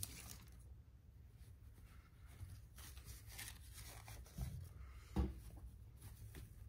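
Soft plush dog toys being picked up and handled from a fabric toy basket: quiet rustling and rubbing of fur and fabric, with two dull bumps a little after four and five seconds in.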